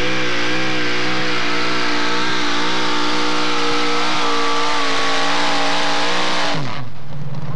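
Modified four-wheel-drive pulling truck's engine running flat out on open exhaust as it pulls the sled. The pitch wavers at first, then holds steady and climbs slightly. Near the end the engine is let off suddenly and its pitch falls away to a low run.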